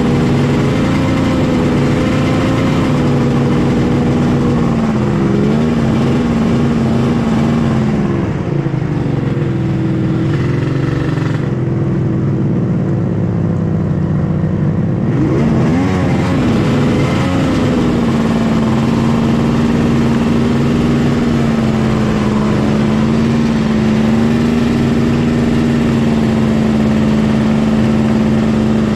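Snowmobile engine running under way. Its pitch wavers and falls as the sled slows near the middle, then rises quickly as it speeds back up and holds steady to the end.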